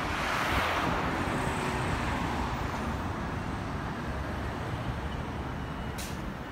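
Road traffic passing close by: a city transit bus goes by, followed by a van and an SUV, a steady rush of tyre and engine noise that slowly fades.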